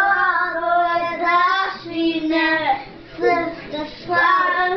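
Young children singing a song in sustained, held notes, phrase by phrase.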